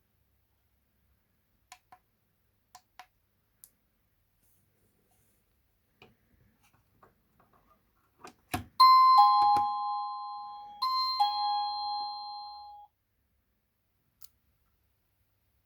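Wireless doorbell receiver playing an electronic ding-dong chime twice; each time a high tone steps down to a lower one, and the second chime cuts off suddenly. A few sharp clicks come just before the chime.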